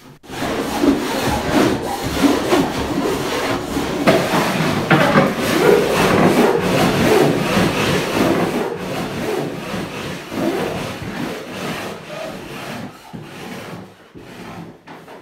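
A hand file scraping in repeated strokes along the sharp fibreglass edge at the gunwale of a cedar-strip canoe hull, cutting off the glass. The strokes grow fainter over the last few seconds and fade out.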